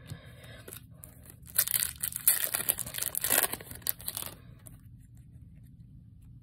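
A foil booster-pack wrapper being torn open: a rough tearing and crinkling that starts between one and two seconds in and lasts close to three seconds, after a little quiet card handling.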